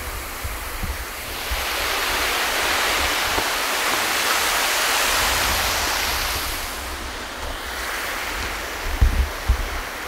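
Rushing noise of a camera sliding fast along the ground over paving, swelling for a few seconds and then fading, with a few low thumps near the end.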